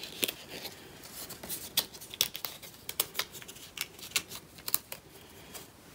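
Cardboard game components being handled: a string of light, irregular clicks and taps with a little rustling.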